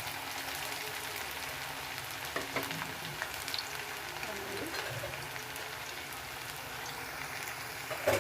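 Marinated chicken pakodi pieces deep-frying in hot oil in a kadai on a low flame: a steady sizzle with scattered crackles, and a sharper knock near the end.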